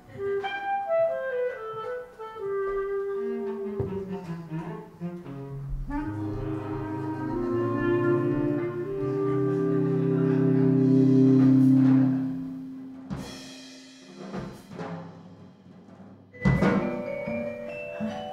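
Instrumental jazz-ensemble cartoon score. A descending melody leads into sustained low chords that swell to a loud peak about twelve seconds in, then fall away. A few sharp percussion hits follow, and a new phrase starts near the end.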